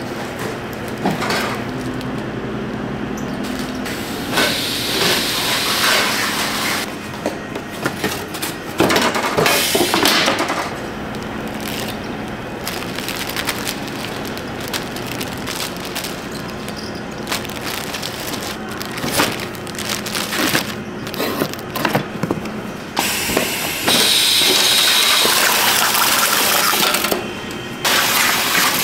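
Packaging-line machinery running: conveyor belts and rollers with repeated clicks, rattles and clatter of bagged snacks. Near the end a louder steady noise lasts about three seconds as a carton-sealing machine works a box.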